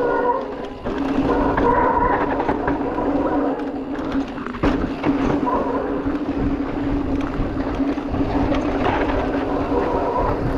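Electric mountain bike's drive motor whining at a steady pitch while riding, over the low rumble of wind and tyres on a dirt trail.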